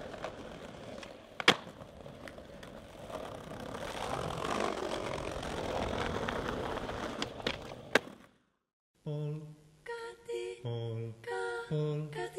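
Skateboard wheels rolling over paving stones, with two sharp board clacks, one about a second and a half in and one at about eight seconds. After a brief silence, a voice hums or sings short wordless notes near the end.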